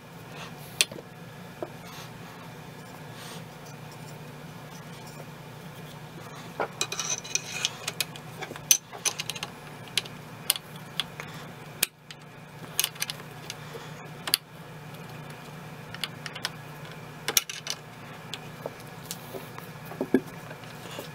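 Metal parts of a K98k rifle clicking and clinking as it is reassembled by hand. The sharp knocks come irregularly, thickest about seven to nine seconds in, over a steady low hum.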